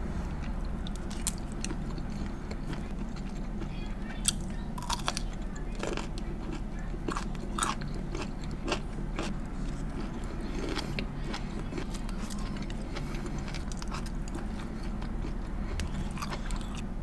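Close-miked mukbang eating: biting and chewing, with wet mouth noises and sharp crunchy clicks scattered throughout. A steady low hum runs underneath.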